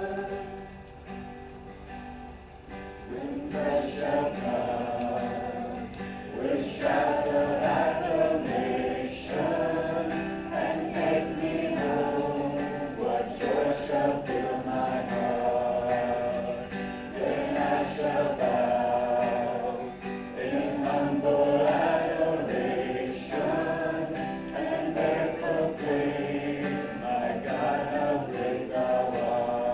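Congregation singing a hymn together, with light instrumental accompaniment.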